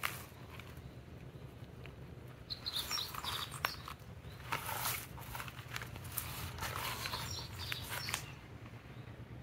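Outdoor ambience with a steady low hum and a few faint bird chirps. About two and a half seconds in, and again about six seconds in, it is broken by a stretch of rustling and scuffing, with one sharp click in the first stretch.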